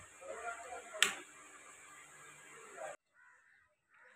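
Side-lever action of an Artemis P15 PCP air rifle worked by hand, with one sharp metallic click about a second in and light handling noise around it. The sound cuts off abruptly about three seconds in.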